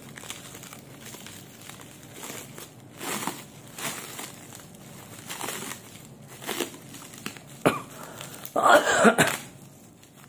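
Clear plastic wrap crinkling and rustling in irregular bursts as it is peeled off by hand, with a louder burst near the end.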